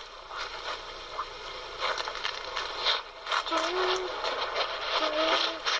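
Muffled, indistinct voices that no words can be made out of, with short voiced sounds about three and a half and five seconds in. Rustling and handling noise on the microphone throughout.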